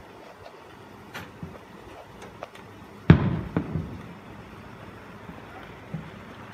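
Distant aerial firework shell bursting: one sharp boom about three seconds in that trails off over about a second, with a few faint pops before it.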